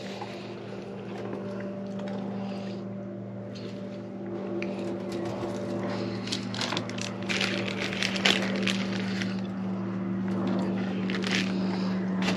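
A steady engine drone that slowly grows louder, with crinkling of a plastic bag being handled in the middle stretch and again near the end.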